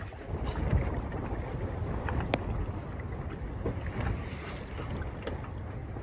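Wind buffeting the microphone over water lapping against a small boat's hull, with a single sharp click a little over two seconds in.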